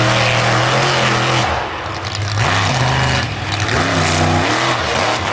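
Monster truck engine held at high revs, easing off about a second and a half in, then two short throttle blips that rise and fall in pitch.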